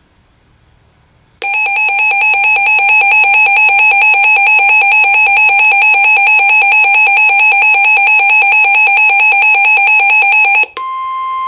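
Weather radio's alert alarm beeping rapidly and loudly, starting about a second and a half in and stopping suddenly near the end, where the steady 1050 Hz NOAA Weather Radio warning alarm tone takes over, signalling an incoming Severe Thunderstorm Warning.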